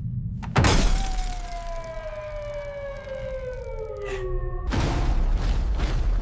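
Cartoon action sound effects. A sudden shattering crash comes about half a second in, followed by a long whine that slides steadily down in pitch for about four seconds. Near the end this gives way abruptly to a loud rushing rumble.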